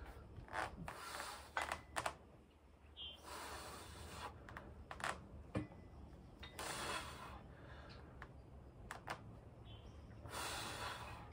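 A man's forceful exhalations, about one every three seconds, as he strains through dumbbell preacher curls toward failure, with a few light clicks in between.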